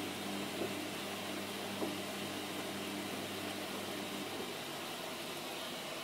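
Samsung washing machine running: a steady hiss with a low motor hum that stops about four seconds in, and two light clicks early on.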